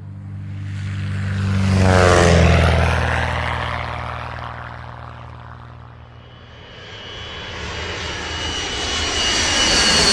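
An engine-driven machine passes by: its low, pitched drone swells to a peak about two seconds in, then fades away. From about six seconds a second, hissing sound with high whistling tones builds up and grows louder toward the end.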